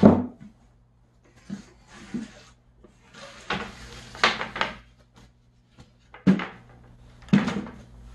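Wooden knocks and clatter of a plywood and timber folding table frame being folded up, its hinged sides swinging shut against each other. There are several separate knocks, the loudest at the very start and twice near the end.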